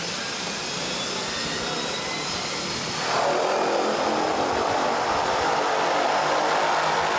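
Pilatus PC-6 Turbo Porter's turboprop engine and propeller running on the ground, a steady drone that turns suddenly louder and harsher about three seconds in.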